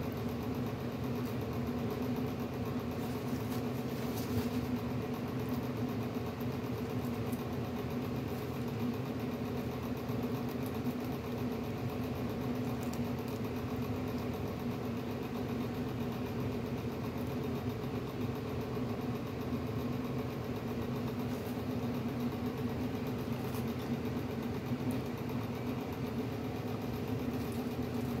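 Steady mechanical hum at an even level, with a few faint clicks.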